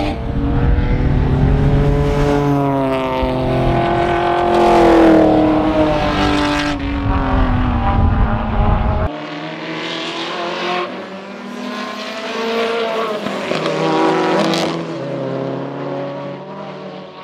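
Sports sedan and GT race car engines at racing speed, revving up and down through the gears as cars pass, with more than one engine heard at once. About halfway through, the deep rumble drops out suddenly and the engines carry on with a thinner sound.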